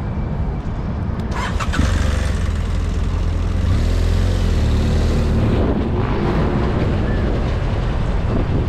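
BMW F800GS parallel-twin motorcycle engine pulling away and running at low speed, louder from about two seconds in.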